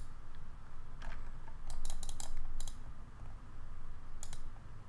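Scattered sharp clicks of computer controls, about seven of them and some in quick pairs, over a faint steady low hum.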